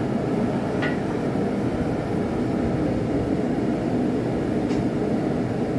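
Steady roar of a blacksmith's forge running, with no hammering; two faint clicks, about a second in and near the end.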